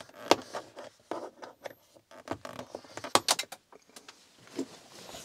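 Small screwdriver prying plastic screw-cover caps out of a plastic wall panel: an irregular run of sharp clicks and scrapes of metal on plastic, the sharpest just after the start and a quick cluster about three seconds in.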